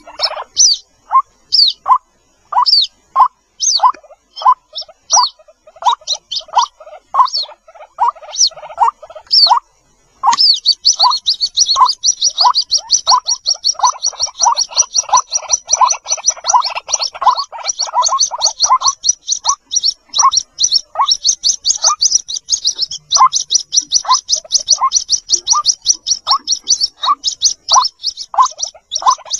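White-breasted waterhen chicks calling for their mother: short peeping notes about twice a second under thin, high-pitched calls. About a third of the way in, the high calls turn into a rapid, continuous twittering trill.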